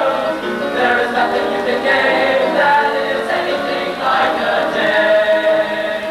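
A group of voices singing together like a choir, with long held notes.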